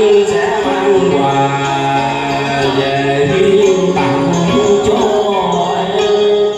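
A man singing a Vietnamese duet song into a handheld microphone, holding long low notes, over an amplified karaoke backing track.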